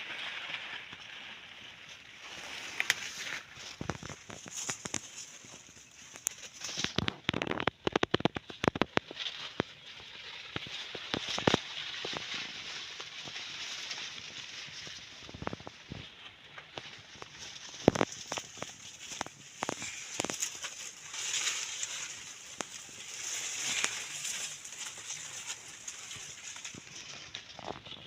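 Rustling and crackling of maize leaves and stalks being handled, with scattered sharp clicks and a dense run of crackles about seven to nine seconds in.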